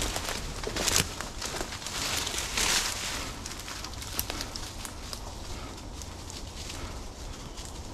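Footsteps crunching through dry leaves and brush, with twigs and sticks snapping underfoot. The snaps come thickest in the first few seconds and then settle to a softer shuffle.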